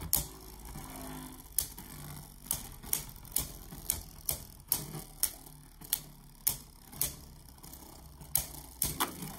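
Two Beyblade Burst tops, World Spriggan and Brave Valkyrie, spinning in a plastic stadium and clashing together in repeated sharp clicks, about one or two a second at uneven intervals.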